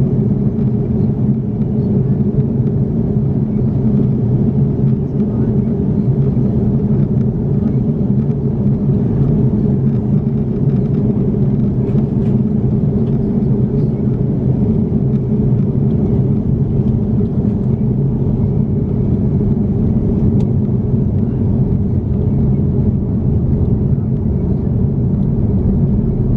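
Steady low drone inside the cabin of an Airbus A330-200 in flight on its descent: engine and airflow noise heard from a window seat, even throughout with no change in pitch.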